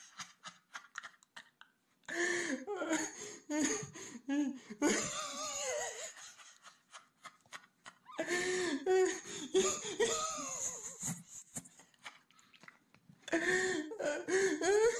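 Hearty laughter in several bursts, with short pauses between them.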